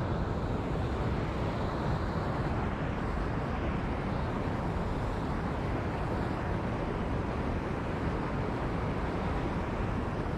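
Steady wind buffeting the microphone, a low, even rumble with no distinct events.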